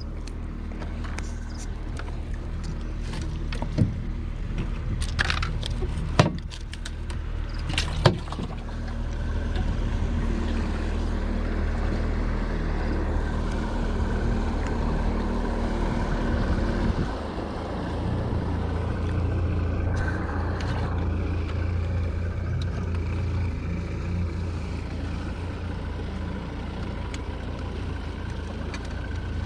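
A small boat's motor running steadily, its hum shifting about 17 seconds in. A few sharp knocks come in the first eight seconds.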